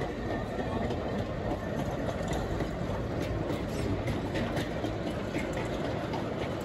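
Ffestiniog Railway gravity train of small four-wheeled slate wagons rolling past without a locomotive: a steady rumble of wheels on the narrow-gauge track, with scattered light clicks.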